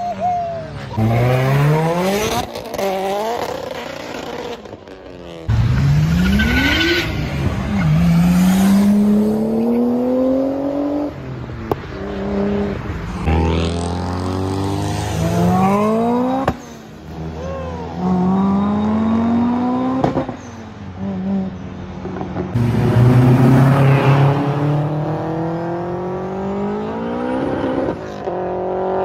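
Tuned sports car engines accelerating hard, each rising in pitch as it revs up a gear and then dropping sharply at the shift, in several short clips cut one after another.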